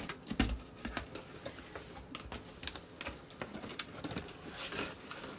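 Cardboard box being opened and handled: irregular light taps, clicks and scrapes of the lid and packaging, with a dull thump about half a second in.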